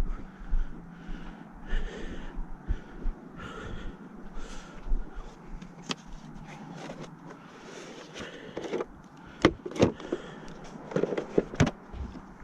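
Irregular clicks and knocks over light rustling, sharpest and loudest about nine and a half to ten seconds in, with a further cluster near the end: someone moving about and handling things.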